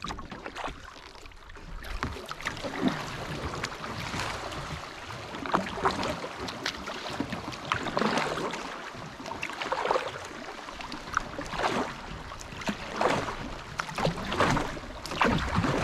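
Canoe paddle strokes dipping and pulling through river water, a splash every second or two over steady water noise along the hull.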